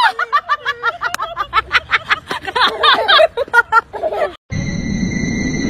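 A person laughing hard in rapid high-pitched bursts for about four seconds. After a short break it gives way to a steady electronic-sounding tone with hiss.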